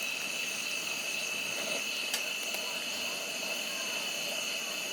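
Steady, high-pitched insect chorus of a summer forest, holding one even pitch throughout. A single faint click about two seconds in.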